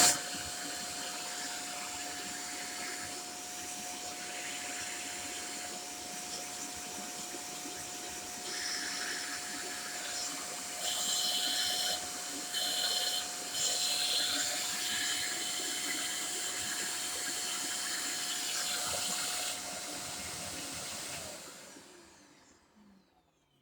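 Shark corded vacuum cleaner running with a steady whine and airflow hiss, the sound of the suction changing in the middle as it is worked; near the end it is switched off and winds down over a couple of seconds.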